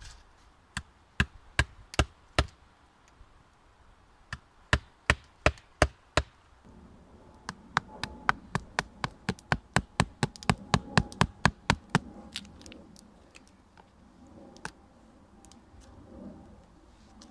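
A wooden baton knocking on a knife, driving the blade into a rotten pine log to cut a notch joint. The sharp knocks come in runs, the last and longest at about three a second, then thin out to faint taps after about twelve seconds.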